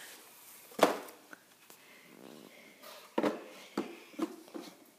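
Plastic knocks and clunks as a purple plastic push handle is fitted into the back of a plastic ride-on toy car: one sharp knock about a second in, then several short knocks in quick succession near the end.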